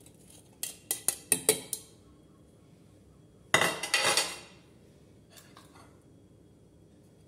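Metal tongs and chickpeas clinking against a porcelain plate and a stainless steel pressure cooker, several sharp clinks in the first two seconds. About three and a half seconds in comes a louder clatter of dishes that rings briefly, followed by a few faint clicks.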